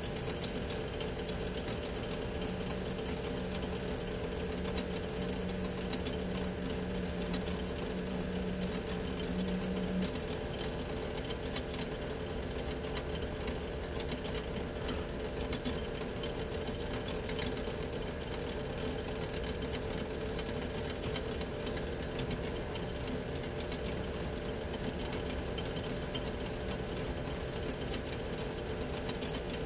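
Metal lathe running steadily while a boring bar cuts the bolt-nose recess into the breech end of a threaded Remington 700 barrel tenon. A low tone in the machine's hum drops out about ten seconds in.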